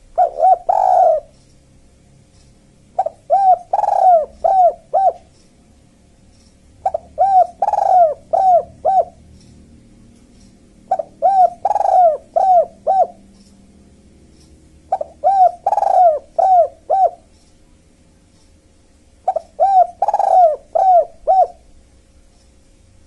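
Dove cooing: six phrases of four or five rounded coos each, repeating about every four seconds. It is either the spotted dove (tekukur) or the collared dove (derkuku) that the recording pits against each other.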